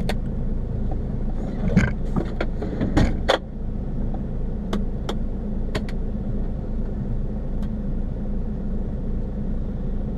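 Iveco truck's diesel engine idling steadily, heard inside the cab, with scattered clicks and knocks from the cab controls, the loudest clunks about three seconds in.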